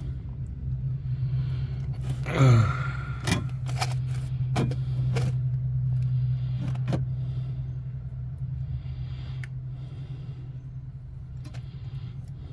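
A steady low hum under scattered small clicks and soft scraping as high-temperature RTV silicone sealant is spread around a floor-pan patch. About two seconds in, a short low sound drops in pitch.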